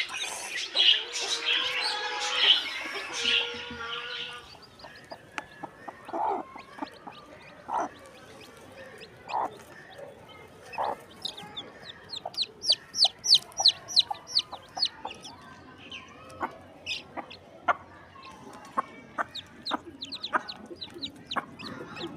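Broody hen and her newly hatched chicks: the hen clucks in short low calls every second or so, and the chicks peep in quick runs of high chirps. The first few seconds hold a louder, denser burst of calls.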